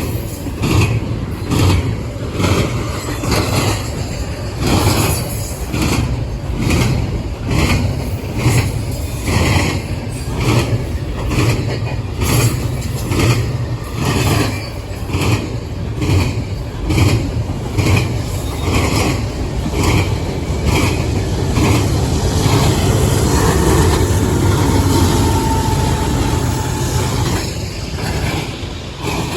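A train rolling past, its wheels clicking over the rail joints at a steady rhythm of about one and a half clicks a second over a low rumble. Near the end the clicking eases into a smoother running noise.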